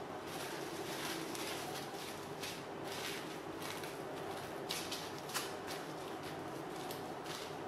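Plastic cling film rustling and crinkling under hands as a wrapped ball of pasta dough is pressed and shaped on a countertop, in soft irregular strokes with one sharper tick about five seconds in. A low steady hum runs underneath.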